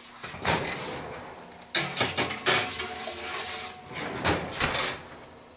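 Electric range oven door opening and a metal baking pan clattering onto the oven's wire rack, with several sharp metal knocks as the door is shut again.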